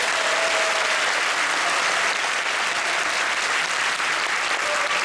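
Large concert-hall audience applauding steadily, a dense even clapping welcoming the final piece.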